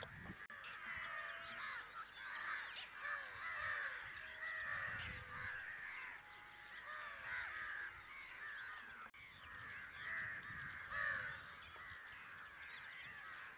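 A large flock of crows cawing, many short calls overlapping into a continuous, fairly faint chorus.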